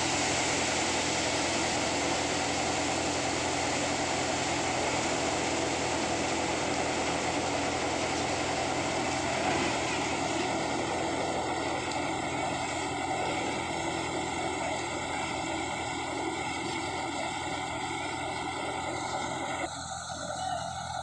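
Tractor-driven paddy thresher running steadily, its threshing drum and the tractor engine making a loud, continuous mechanical noise as it threshes rice and blows out straw. Near the end the sound abruptly becomes thinner and a little quieter.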